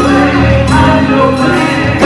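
Live gospel praise-and-worship music: several singers on microphones over electric guitar and bass guitar, with a steady bass line under held sung notes.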